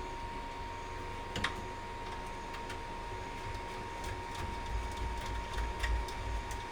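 Scattered light clicks, one sharper click about a second and a half in, and some soft low knocks of handling near the end, over a steady faint high-pitched whine.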